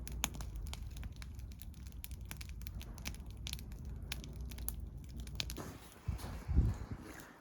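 Wood campfire crackling, with many sharp irregular pops over a steady low rumble; a few louder dull thumps come near the end.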